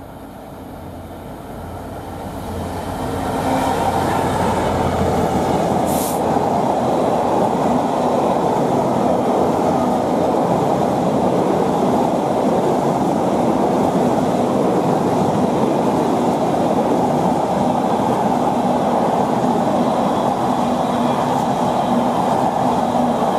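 A Direct Rail Services Class 66 diesel freight locomotive, with its two-stroke V12 engine, approaches and grows louder over the first few seconds. A long train of intermodal container wagons then rolls past with a steady, loud rumble of wheels on rail, broken by a short high hiss about six seconds in.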